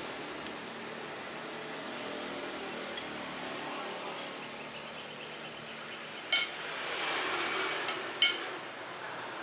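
Metal spoon and fork clinking and scraping against a plate a few times in the second half, two sharp clinks loudest, over a steady background hum.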